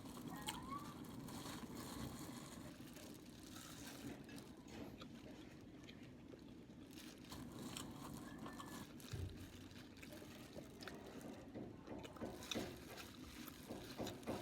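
Faint eating sounds: chewing, with scattered light clicks of utensils on a plate that come more often near the end.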